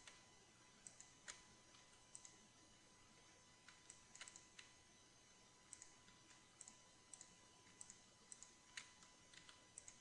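Faint, irregular clicks of a computer mouse and keyboard, often two or three close together, as mesh edges are selected and deleted in Blender.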